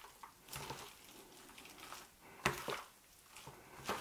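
Gloved hand mixing onion rings and mayonnaise-coated pork cubes in a steel roasting tray: soft, wet squishing and rustling, with sharper clicks about two and a half seconds in and near the end.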